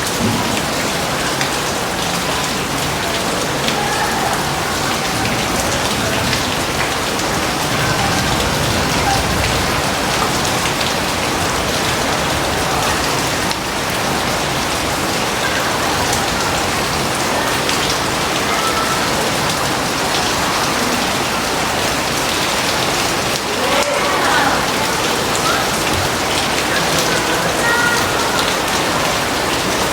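Heavy rain falling steadily, a dense, even patter of drops on surfaces.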